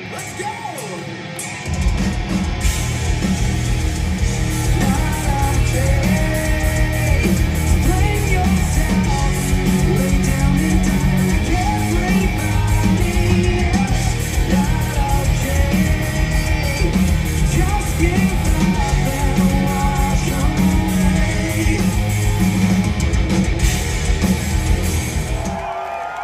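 Live hard rock band playing loud through a club PA, heard from the crowd: distorted electric guitar, bass and drums with a male lead vocal. The full band comes in about two seconds in after a thinner opening and drops away near the end.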